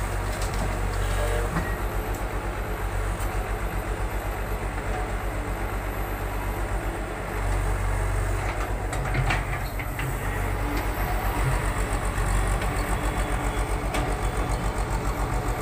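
Tata Hitachi tracked excavator's diesel engine running with a fast, steady low throb, getting louder about seven and a half seconds in as the machine works under load. A few knocks and a rattle follow around nine seconds in, as the bucket dumps sand into the tractor trailer.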